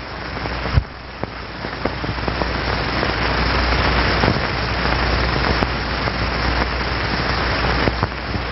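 Steady hiss with scattered crackles and clicks over a low hum: surface noise from the optical soundtrack of a worn 16mm film print. It swells over the first few seconds, then holds.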